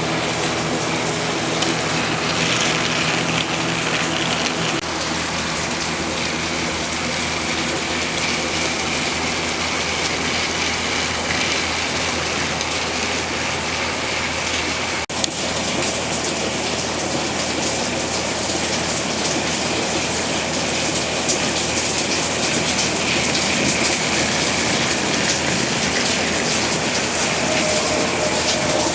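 A Trackmaster Thomas toy engine's small battery motor runs with a steady hum as it travels along the plastic track. Rain falls on the shed roof throughout, and there is a single sharp click about halfway through.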